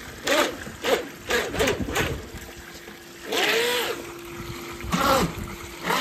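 Force1 Velocity H102 RC speedboat's small electric motor revved in a string of short throttle blips, each a quick rise and fall in pitch, with a longer rev about three seconds in. Water splashes and trickles from the pool's wall waterfall around the hull.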